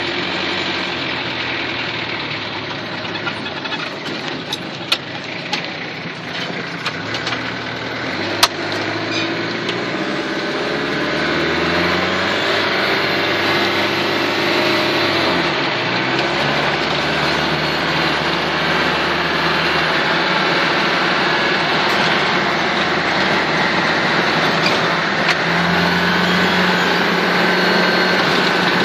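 Old truck's engine running as it drives, heard from inside the cab. The engine note rises and drops several times, with a few sharp clicks and knocks of the cab between about four and nine seconds in.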